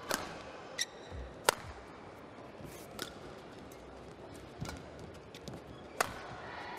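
Badminton rally: sharp racket strikes on the shuttlecock, about one every second and a half, five in all. A shoe squeaks briefly on the court floor about a second in.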